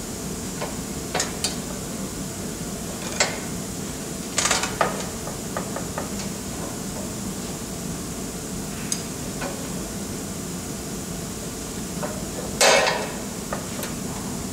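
A keyway broach being pushed by hand through the bore of an aluminium pulley on a Dake No. 1 arbor press: the broach teeth cut in with scattered sharp metallic clicks and crunches. The loudest is a longer crackle near the end.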